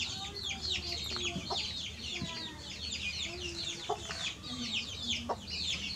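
Birds chirping continuously: a dense chatter of many short, high, falling chirps overlapping one another, with a few short lower calls underneath.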